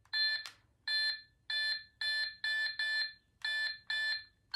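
Battery-operated 1999 toy telephone giving about eight short, identical electronic beeps, one per keypad button press, as a number is dialled.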